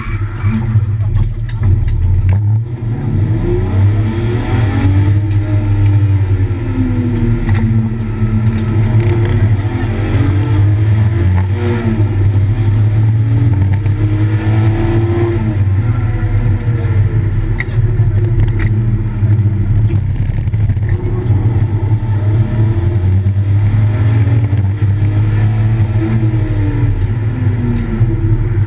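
BMW E36 engine heard from inside the cabin, revving up and down through the gears at racing pace, its pitch rising and falling again and again over a constant low drone.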